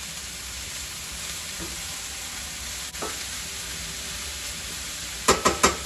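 Onion, garlic, carrot and shredded cabbage sizzling in canola oil in a frying pan while being stirred with a wooden spatula. Near the end there are several quick, sharp knocks.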